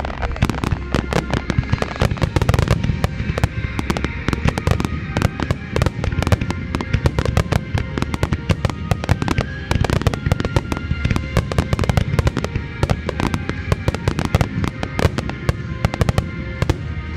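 Aerial firework shells bursting in rapid, overlapping succession during a pyromusical finale, the bangs and crackles dense and continuous, with the display's music playing underneath.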